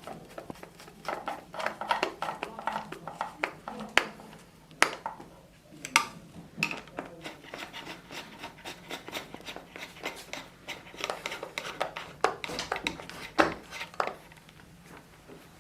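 Phillips screwdriver tightening the screws of a wheelchair arm pad: irregular light metallic clicks and scrapes, with a few sharper knocks.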